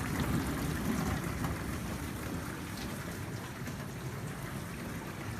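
New GE dishwasher running a wash cycle: a steady low hum with water spraying and sloshing inside the tub.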